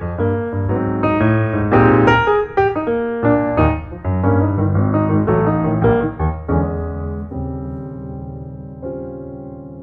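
Solo piano music: a run of struck notes and chords, then from about six seconds in a held chord fading away, with one quieter chord near the end.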